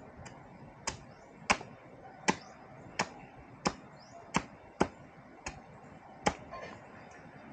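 A bolo knife chopping bamboo on a log: about ten sharp strikes, a little under a second apart.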